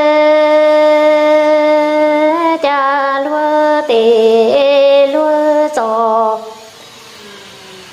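A single voice singing Hmong kwv txhiaj (sung poetry) with no accompaniment: one long held note, then a few shorter wavering notes that trail off about six seconds in, leaving a quieter pause near the end.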